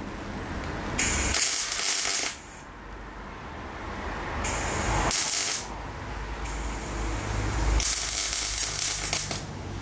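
Electric arc welding: three short bursts of crackling, hissing arc on a steel motorcycle frame bracket, each about a second or so long, with pauses between them.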